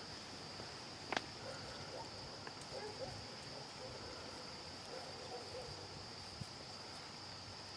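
Steady, high-pitched chorus of insects, with a single sharp click about a second in.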